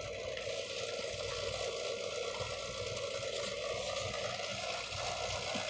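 Steady fizzing and crackling of foaming coil cleaner working on dirty refrigeration condenser coils, over a faint low hum of running equipment.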